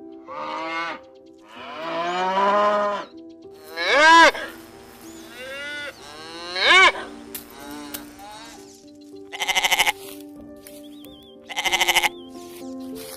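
Sheep bleating, about seven calls of differing length, some long and wavering, the last few short and pulsing, over quiet background music.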